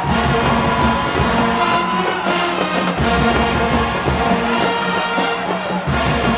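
HBCU-style marching band playing a brass-heavy tune at full volume, horns sounding over a steady low beat.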